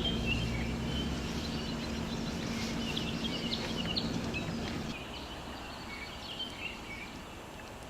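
Small birds chirping and twittering in short, quick calls over a steady low hum that stops about five seconds in.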